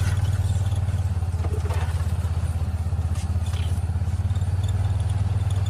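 A vehicle engine running at a steady speed, with a fast, even low pulse and a few light rattles over it.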